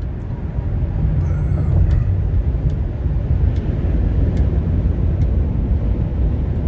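Steady low rumble of a car driving along a highway, heard from inside the cabin, rising in level over about the first second. A few faint ticks sound over it.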